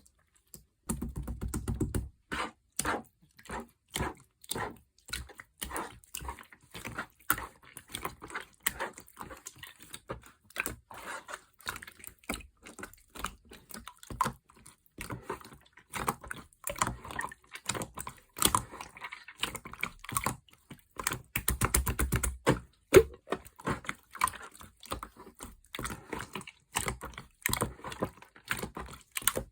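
Clear blue slime being squished and pressed, making a quick, irregular run of sticky pops and clicks, with a few heavier squelching stretches.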